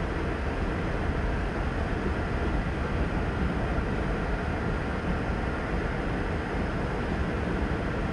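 Freight train of covered hopper cars rolling past at steady speed, an even low noise of steel wheels on rails, heard through the windshield of a parked car.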